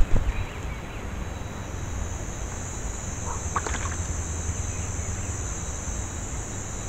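Steady high-pitched insect chorus with a low rumble underneath, and a couple of short chirps about three and a half seconds in.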